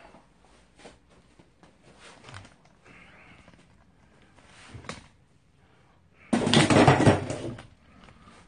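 Handheld phone being picked up and carried, with a few small knocks and clicks, then about a second and a half of loud rustling right against the microphone near the end.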